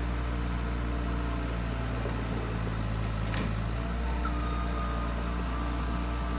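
Skid loader engine running steadily, with a brief click about three and a half seconds in.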